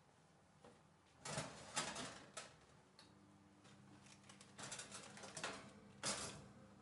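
Metal baking tray scraping and clattering against the oven's wire rack as it is pulled out, after a few knocks near the start. A faint steady hum runs underneath from midway.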